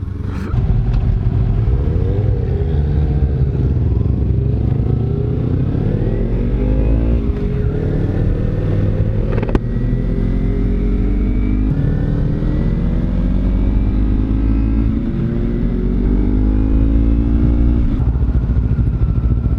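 Kawasaki Z300's parallel-twin engine accelerating up through the gears, its pitch climbing steadily and dropping at each of about four gear changes. Wind rushes over the helmet-mounted microphone.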